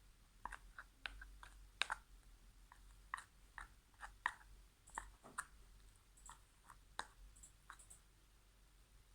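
Slime being stirred in a bowl, giving faint, irregular wet clicks and pops, a few a second.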